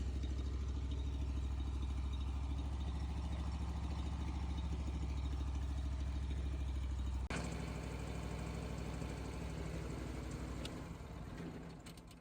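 Woodland Mills HM136MAX portable sawmill's gas engine running steadily, with an abrupt change in its sound about seven seconds in, then fading out near the end.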